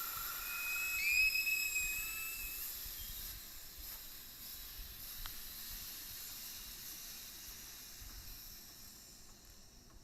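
Refrigerant (Freon) escaping with a hiss from the 1995 Chevy S-10's air-conditioning line as the bad hose is opened. A whistling tone in the first two seconds or so rises a little in pitch, then the hiss fades steadily as the pressure bleeds off. The system still held a charge, although the hose had been thought to have leaked it all out.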